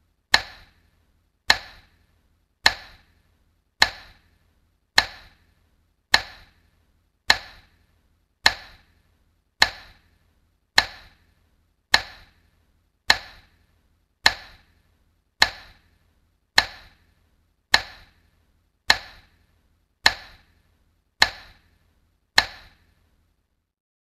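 Sharp clicks repeated at an even pace of about one every second, each with a brief ringing tail; they stop a second or two before the end.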